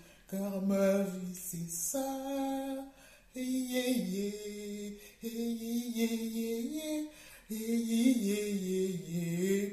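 A woman singing unaccompanied, in held, gliding phrases of a second or two with brief pauses between them.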